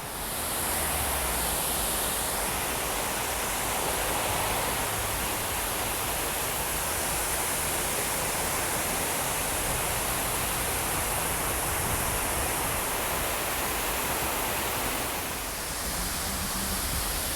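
Waterfall rushing: a steady roar of falling water with a strong high hiss.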